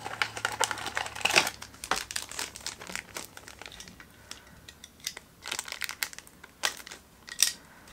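Mystery-box packaging handled and opened by hand: irregular crinkling and rustling with short sharp crackles, loudest about a second in and again near the end.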